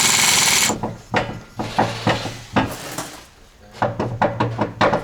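Impact wrench hammering for under a second as it tightens the loose drive-shaft hub nut, then stops; a string of separate metallic knocks and clicks from tools being handled follows.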